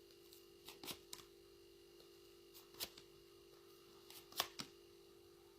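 Faint handling of tarot cards: a few soft, scattered flicks and taps, over a steady low hum.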